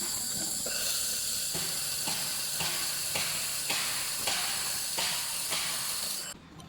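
Handheld fiber laser head firing on metal: a steady loud hiss with a high-pitched whine and faint crackles, cutting off suddenly near the end.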